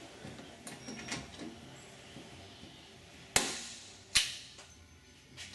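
Hand rivet puller working blind rivets into aluminium sheet: soft clicks of the handles being squeezed, then two sharp snaps a little under a second apart, the crack of the rivet mandrels breaking off as the rivets set.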